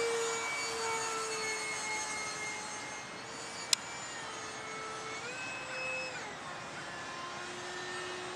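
70mm electric ducted fan of a radio-controlled F-16 jet in flight: a steady whine that slowly sinks in pitch, steps up about five seconds in, holds for about a second, then drops back. A single sharp click a little under four seconds in.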